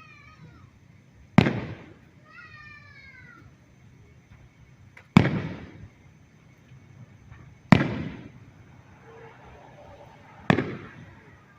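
Fireworks shells bursting: four loud bangs a few seconds apart, each trailing off in a rumbling echo.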